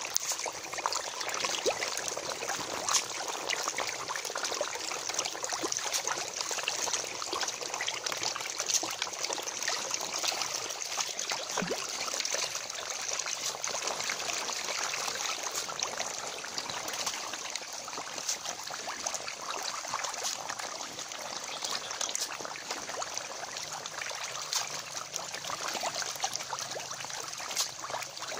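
A crowded shoal of Nile tilapia thrashing and gulping floating feed at the pond surface: a steady, dense crackle of many small splashes.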